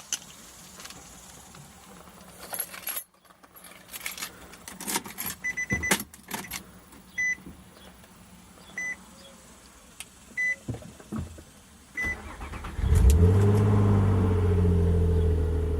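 Keys jangling, clicks and a car's warning chime beeping every second or two, then about twelve seconds in the starter cranks and the 2005 Nissan Altima SE-R's 3.5-litre VQ35DE V6 catches, flares up and settles into a steady idle. This is the first start after the oil change and the new oil pressure sensor.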